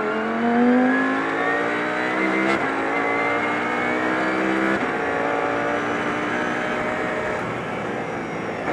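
Audi R8 LMS GT3's 5.2-litre V10 accelerating hard, heard from inside the cockpit. It revs up through the gears with quick upshifts about two and a half and about four and a half seconds in, then pulls on more slowly and holds steady near the end.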